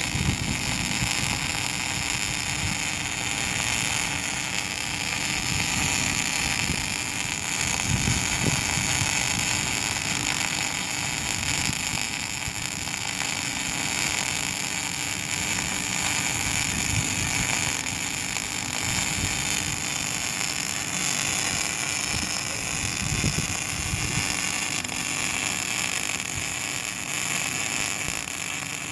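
Daihen XD II 350 welding machine arc welding in a test: the arc sizzles steadily without a break.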